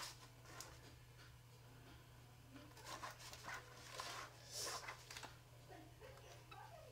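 Near silence with faint scraping and squishing as slime is stirred by hand, a few soft strokes between about three and five seconds in, over a steady low hum.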